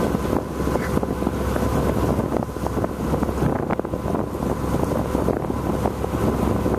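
A boat's engine running steadily under way, a low drone with a rushing of wind over the microphone.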